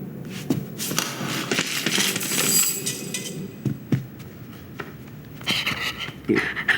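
Foley from an animated film's effects track: a stretch of rustling, several sharp knocks and taps, and a busier clatter near the end.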